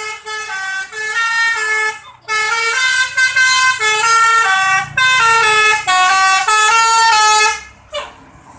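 Basuri 'telolet' multi-tone bus horn playing a tune of held notes that step up and down in pitch, with a short break about two seconds in. It stops near the end, and a vehicle engine is heard after it.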